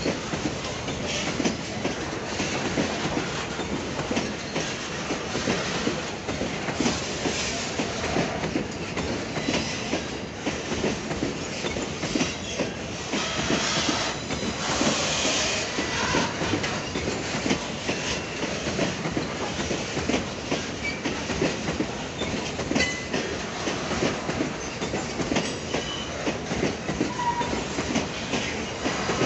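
Loaded coal hopper wagons rolling past, their steel wheels clicking and knocking over the rail joints in a steady clatter. About halfway through a high-pitched wheel screech joins in for a few seconds.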